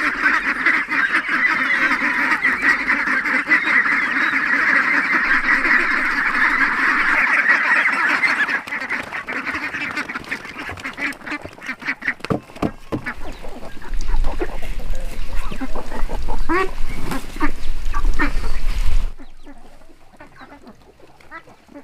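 A flock of white domestic ducks quacking noisily together as feed arrives. After about eight seconds the calling thins to scattered quacks and sharp clicks as they crowd in to eat, with a low rumble underneath, and the sound drops away abruptly near the end.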